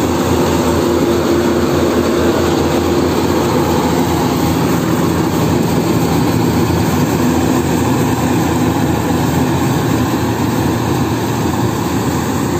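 Yanmar AW70GV crawler combine harvester running steadily and loud as it cuts rice, a continuous engine-and-machinery drone with no breaks.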